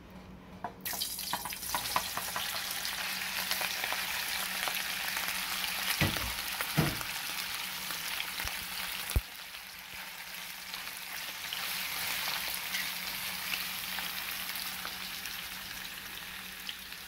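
Sliced Hungarian sausages dropping into hot oil in a frying pan and sizzling loudly. The sizzle starts suddenly about a second in, with clicks as pieces land early on. A few knocks come as they are moved about in the pan, one sharp knock near the middle.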